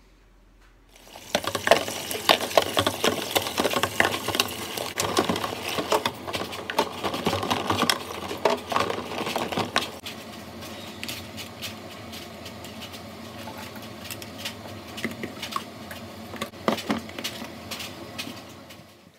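Plastic baby bottle parts and a bottle steriliser's rack clicking and clattering as they are handled and loaded. A busy run of knocks starts about a second in and turns lighter after about ten seconds.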